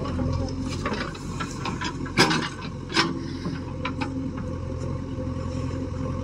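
Diesel engines of a JCB backhoe loader and a tractor running steadily while the backhoe loads soil, with two sharp knocks about two and three seconds in and lighter clatter from the digging.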